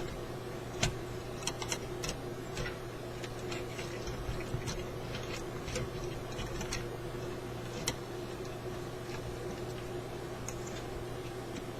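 Light, irregular clicks and taps of small metal parts and tools being handled while a car radio is reassembled, over a steady low hum.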